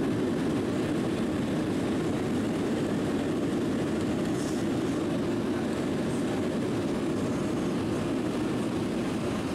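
Steady cabin roar of a Boeing 737-700 rolling out on the runway just after landing, heard from a seat over the wing: engine and rolling noise together, easing off slightly toward the end as the jet slows.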